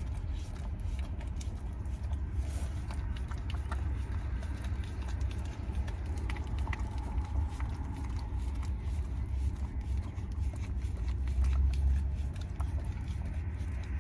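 A dog licking and chewing at a frozen dog treat, with many small wet clicks, over a steady low rumble.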